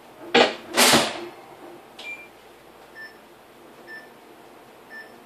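Microwave oven door banging shut twice, then its keypad beeping: one higher beep, followed by short single beeps about once a second. The oven is being set to heat a bowl of cream cheese and milk a little longer to soften it.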